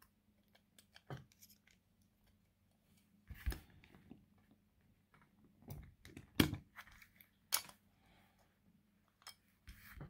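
Sharp metallic clicks and scrapes as a North American Arms .22 mini revolver is handled in its stainless-steel belt-buckle holder and worked loose from it, about seven separate clicks with the loudest about six and a half seconds in.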